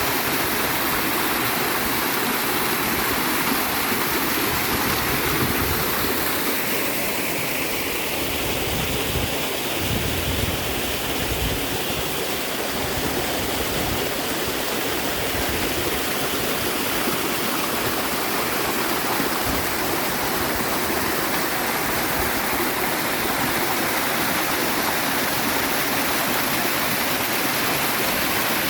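River water and a small waterfall rushing and splashing in a steady, even roar of white water.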